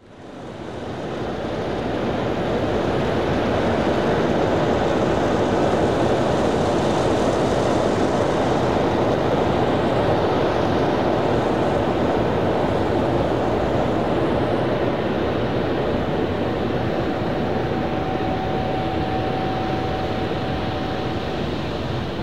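Sukhoi Superjet 100's twin PowerJet SaM146 turbofans running at taxi power, a steady jet rush that fades in over the first couple of seconds. A thin steady whine joins in the second half.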